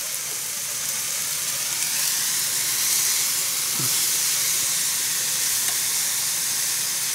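Eggplant strips and corned beef sizzling with a steady hiss in a hot frying pan as a few spoonfuls of water added to soften the eggplant boil off into steam, stirred with wooden chopsticks.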